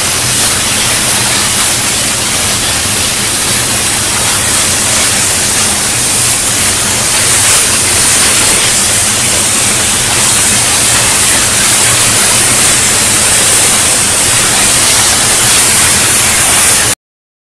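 Steady loud industrial noise of a steel fabrication shop: an even hiss with a low hum underneath, cutting off suddenly near the end.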